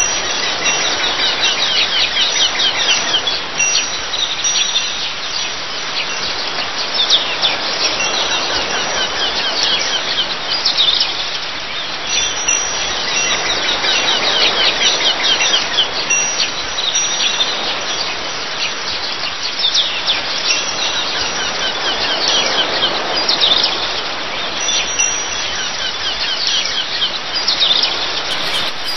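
Many birds calling in quick repeated chirps and piping notes over a steady wash of sea waves and wind.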